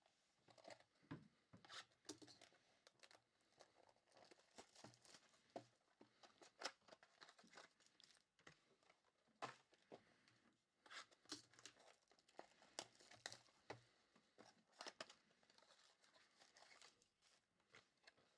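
Faint, irregular crinkling and tearing of plastic wrapping as trading card packs and boxes are opened by hand.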